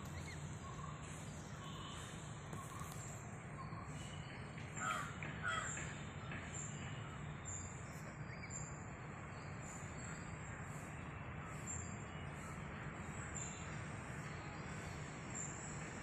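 Crows cawing, loudest about five seconds in, with a thin high chirp recurring about once a second, over a steady low hum.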